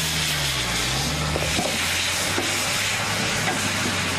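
Food sizzling and hissing in a large wok as it is stir-fried, a steady dense hiss. A steady low hum runs underneath.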